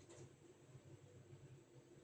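Near silence: faint room tone with a low steady hum and one faint click just after the start.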